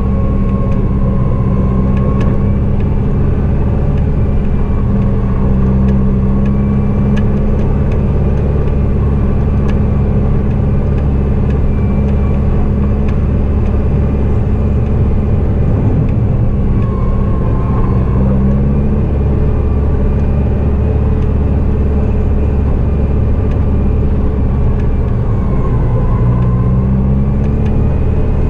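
Diesel engine of a snow-clearing vehicle running steadily under load. The engine note rises briefly twice, about two-thirds of the way through and again near the end.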